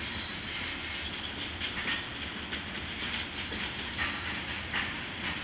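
Freight train of covered hopper cars rolling past: steady wheel-on-rail noise over a low rumble, with a few sharp clicks as wheels cross rail joints.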